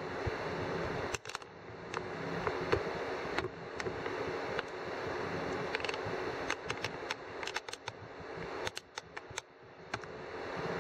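Steady machine hum, like a running fan, with many scattered sharp clicks and ticks; it drops away briefly about a second in and again near the end.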